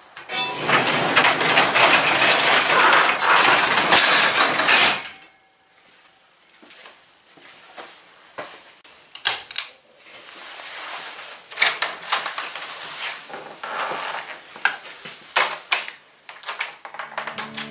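Sectional garage door pulled down by hand, rolling shut for about five seconds. Softer clatter and scattered knocks follow.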